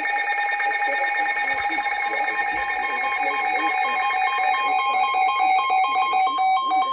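Emergency alert tones from several weather radios or alert receivers sounding at once. Steady tones overlap, and a rapidly beeping tone joins about three seconds in.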